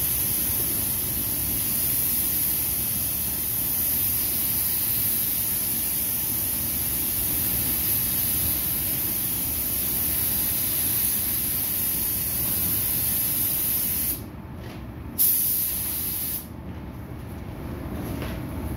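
Paint spray booth's air system running, a steady hiss of moving air over a low rumble. The hiss cuts out about fourteen seconds in, comes back for about a second, then stops, leaving the lower rumble.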